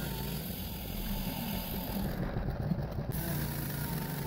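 Bandsaw mill's gas engine running steadily while its band blade rips a board from a log. The engine note wavers about halfway through, then settles again.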